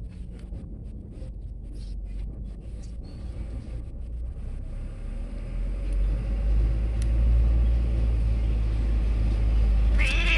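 Low, steady rumble of a motor vehicle's engine, growing louder about halfway through and then holding.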